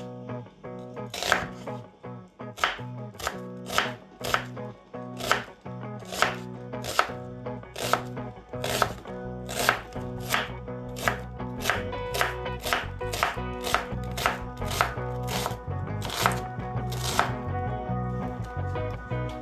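Chef's knife chopping an onion on a bamboo cutting board: a steady run of sharp knocks as the blade hits the board, about two a second.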